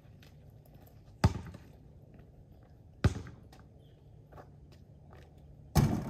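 Three sharp thumps about two seconds apart, each with a short ringing tail, over a low steady hum.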